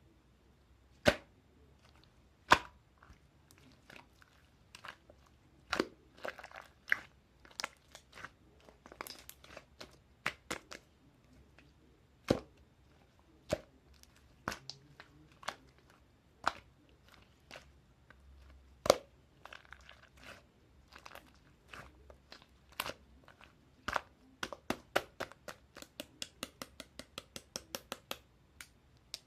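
Slime being worked by hand, giving sharp pops and crackles at irregular intervals, then a quick run of small clicks, several a second, near the end.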